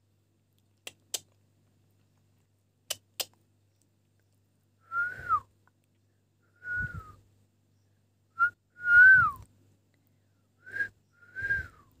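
Two pairs of sharp clicks, then six short, clear whistles at about the same pitch, several of them sliding down at the end. The loudest comes about nine seconds in.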